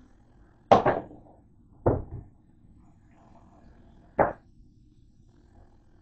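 Handling noise from a handheld camera being moved and gripped: three sharp knocks. The first, just under a second in, is a double knock, the second comes about two seconds in, and the last, single and short, just after four seconds.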